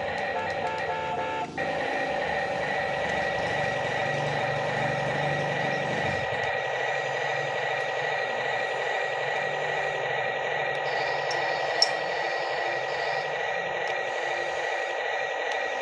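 Toy remote-control construction vehicles running: a steady high-pitched whine with beeping in the first second and a half, and a single sharp click near the twelfth second.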